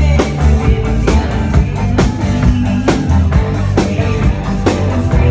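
Live band playing an instrumental passage: drum kit with a strong hit about once a second over a steady bass line, with guitar.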